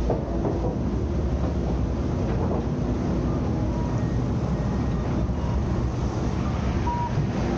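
Steady low rumble and hiss of vehicle noise, with a few faint brief tones over it.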